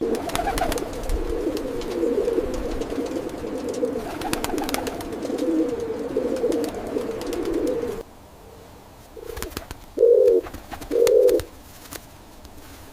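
Pigeons cooing: a dense run of overlapping coos for about eight seconds, which stops suddenly, then three short separate coos near the end.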